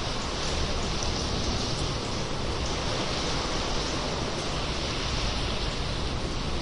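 Sea water washing inside a sea cave, a steady rushing wash echoing off the rock, with a few faint drips of water.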